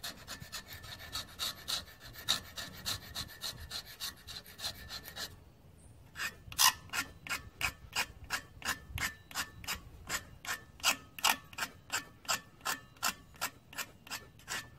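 Hand scraper blade scraping rust off the rusted steel crankshaft end of an International 3 HP Type M engine, in quick rhythmic strokes of about three a second. The strokes pause for about a second some five seconds in, then carry on.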